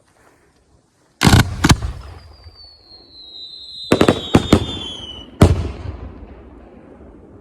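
Aerial fireworks going off: two loud bangs about a second in, then a long falling whistle, three quick bangs around four seconds, and one last big bang that rolls away slowly.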